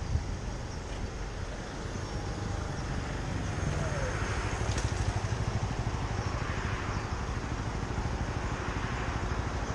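Kymco Agility City 50 scooter's small single-cylinder four-stroke engine idling at a standstill. A motorbike rides up past it, swelling in about halfway through.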